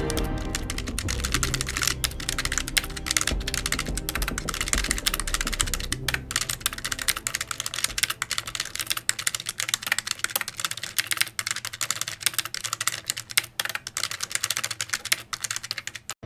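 Rapid, irregular clicking like fast typing on a computer keyboard. A low background hum under it fades out about halfway through.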